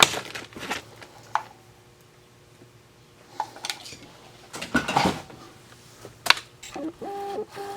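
Vintage sewing machine parts and foot pedals being rummaged through and set down in a box: scattered knocks and clatters of hard plastic and metal, with a cluster about five seconds in and a sharp knock just after six seconds.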